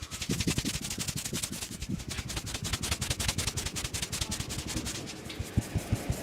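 Hands striking and rubbing a head in quick rhythmic strokes during a vigorous head massage, about seven or eight slaps a second.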